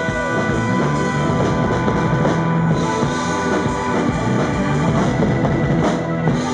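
Live rock band playing loudly: electric guitar over a drum kit.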